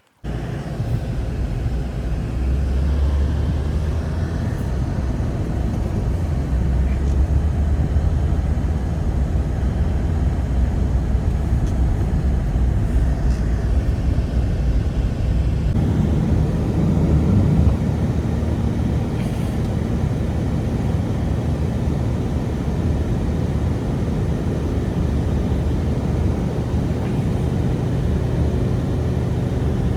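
Strong blizzard wind blowing steadily, a loud low rumbling rush with no break, cutting in abruptly at the start and shifting slightly about halfway through.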